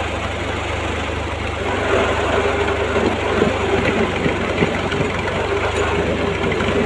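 Kubota M5000 tractor's diesel engine running steadily, driving a PTO auger that bores a planting hole into soil. From about two seconds in, as the blade bites in, a steady whine and the crackle of thrown soil and clods join the engine.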